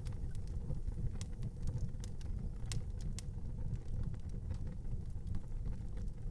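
Wood fire in an outdoor fireplace crackling, with irregular sharp pops over a steady low rumble.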